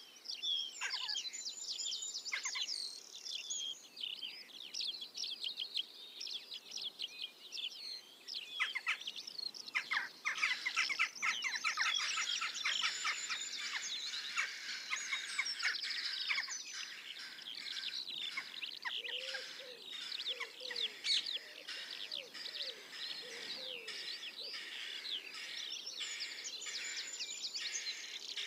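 A chorus of small songbirds singing, many chirps and trills overlapping with no pause. About two-thirds of the way through, a run of short, lower, falling calls joins in.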